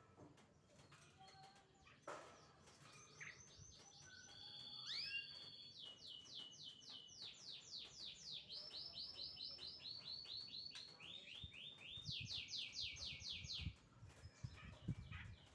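A pied starling (jalak suren) singing: fast runs of repeated high, down-slurred notes, each run pitched differently, with a few soft low knocks near the end.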